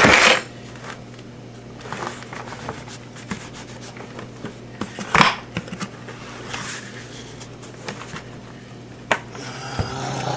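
A heavy tote of coco coir being tipped out into a larger plastic tote: a loud rushing thud right at the start, then scattered scrapes, rubbing and knocks of plastic and damp growing medium, with a sharp knock about five seconds in and a few more near the end.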